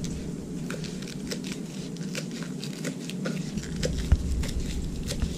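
Kitchen knife chopping rolled Swiss chard leaves on a wooden cutting board: a quick, irregular series of crisp cuts tapping the board, about three a second, with one louder knock about four seconds in.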